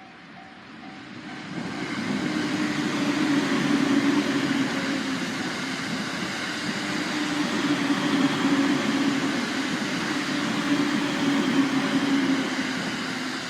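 A train passing close by at a level crossing. Its running noise builds about two seconds in, holds steady for about ten seconds and fades near the end.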